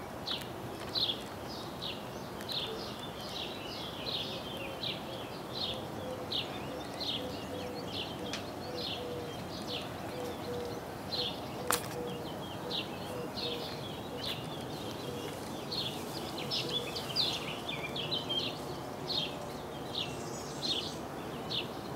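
Birds chirping over and over, short high chirps two or three a second, over the steady hum of distant traffic on the A1 Autostrada motorway. A single sharp click about halfway through.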